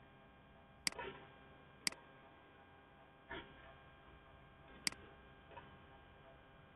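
Computer mouse clicking: three sharp clicks about a second in, two seconds in and near five seconds, with two softer clicks between. Under them is a faint steady hum.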